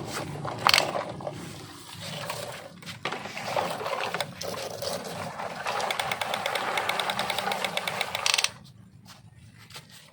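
A small mechanism running with a rapid, even clicking, which stops abruptly about two-thirds of the way through, with a few knocks earlier on.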